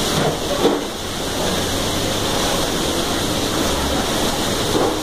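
Water from a burst air-conditioning chilled-water line pouring steadily down through the kitchen ceiling like heavy rain.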